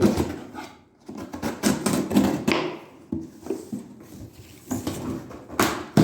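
A cardboard box being opened and its contents handled: irregular rustling, scraping and short knocks.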